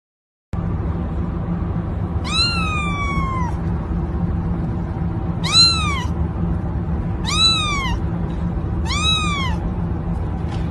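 A young kitten meows four times over a steady low background hum. Each meow rises and then falls in pitch; the first is longest, at over a second, and the others are about half a second each.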